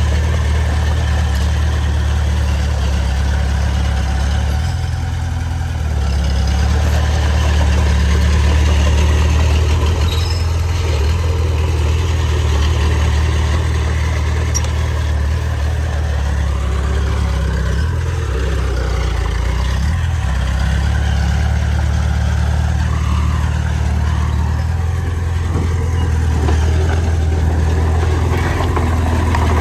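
Heavy diesel engine of earthmoving equipment running steadily, a low drone that shifts slightly in load a few times.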